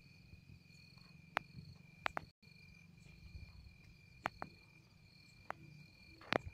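Crickets trilling steadily, a high continuous tone, with a few scattered sharp clicks, the loudest near the end.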